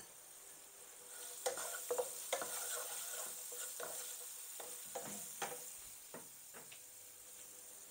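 Wooden spatula stirring and scraping chopped onions and garlic around a nonstick frying pan, a run of scrapes and light knocks from about a second in until near the end. Under it, a faint steady sizzle of the onions frying.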